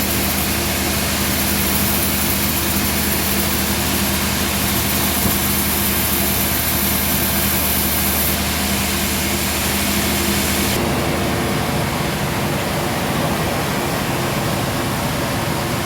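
Band sawmill machinery running with a steady hum and a high hiss. The sound changes abruptly about 11 seconds in, the hiss dropping away.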